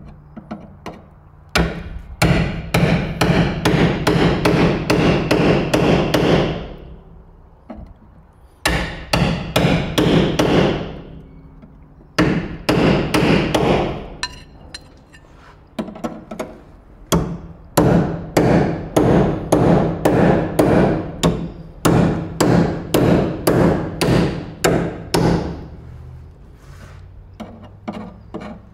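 Hammer driving a spot-weld removal chisel between the two steel skins of a car sill to cut through the spot welds, in several runs of quick blows, about four a second, with short pauses between runs and the panel steel ringing under them.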